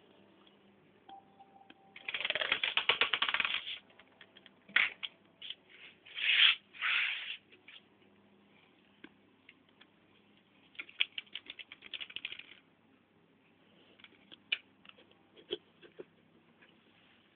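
A plastic mesh laundry basket scraping and rattling on a tiled floor as a baby pushes it, in bursts: a long scrape about two seconds in, two shorter ones around six to seven seconds, a run of quick rattles around eleven to twelve seconds, then a few knocks.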